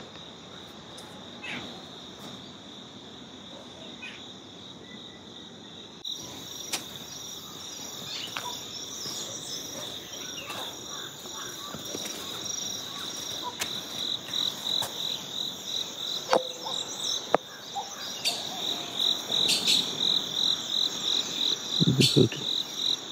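Insects chirring in a steady high-pitched drone. About six seconds in a second, higher pulsing insect call joins. Toward the end the chirring grows louder and more rhythmic.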